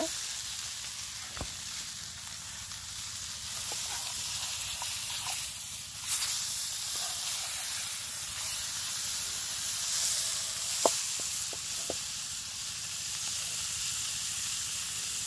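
Fish frying in oil in a pan over a wood fire: a steady sizzle, with a few sharp clicks and scrapes as a metal spatula turns the fish.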